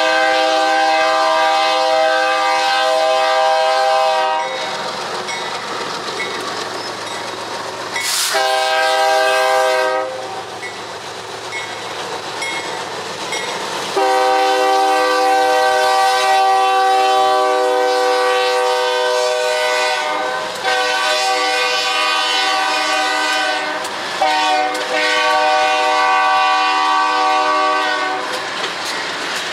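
BNSF freight train passing close by, its lead GE ES44AC locomotive (running long hood forward) sounding a multi-tone air horn chord: a long blast, a short one about 8 seconds in, then a long, drawn-out blast broken twice, ending near the end. Between the blasts come the rumble of the locomotives and the clack of wheels over the rail joints.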